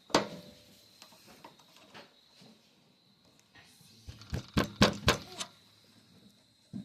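Sharp knocks and clicks of hard objects being handled: one at the very start, then a quick cluster of about six between four and five and a half seconds in, with faint ticks in between.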